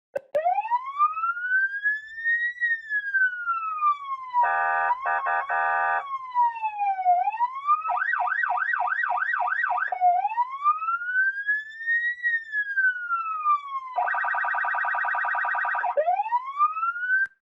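Electronic police siren switching between modes: a slow wail rising and falling, a harsh buzzing horn tone for about two seconds, then a fast yelp of about four sweeps a second, back to the wail and another harsh buzzing stretch. It cuts off abruptly near the end.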